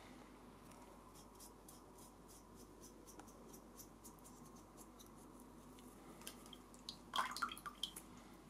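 Faint scratchy strokes of a small paintbrush working alcohol ink over a resin print, with a brief cluster of louder clicks and rustles about seven seconds in.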